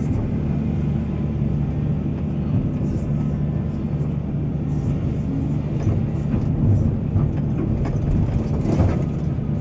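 Diesel engine of heavy mining machinery running steadily under load, with a louder knock near the end.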